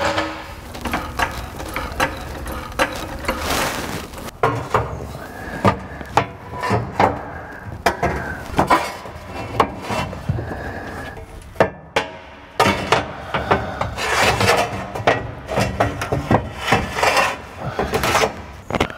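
Irregular clunks, knocks and scraping as a 4L60E automatic transmission is shifted on a floor jack with a wooden block under its pan and worked up against the truck's frame and crossmember, with a few short squeaks.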